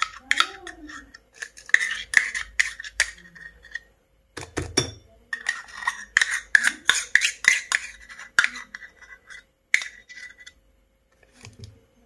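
A spoon scraping and tapping as cocoa cake batter is scooped into a plastic piping bag, with the bag crinkling. Quick scraping strokes, pausing briefly about three seconds in and again near the end.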